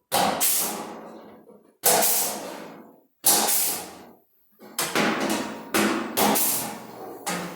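Hammer blows on a car's sheet-metal body panel, each strike ringing and fading away. Three spaced blows come first, then a quicker run of several.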